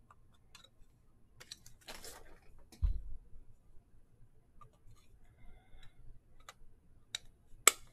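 Soft clicks and rustles of trading cards and clear plastic card holders being handled, with a low thud about three seconds in and a sharp click near the end.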